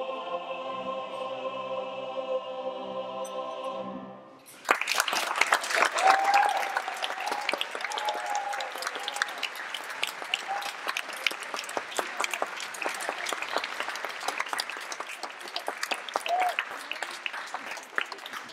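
A male voice choir with a soloist holds a final sung chord, which fades out about four seconds in. The audience then breaks into loud applause, with a few shouts over it.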